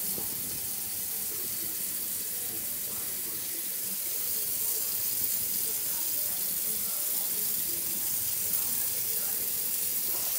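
Water running steadily from a kitchen tap into the sink.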